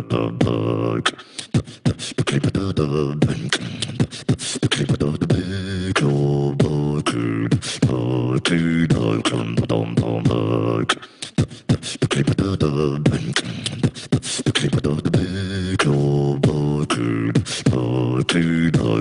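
Beatboxing: vocal drum clicks and snares over hummed, pitched bass tones, with a short break about eleven seconds in.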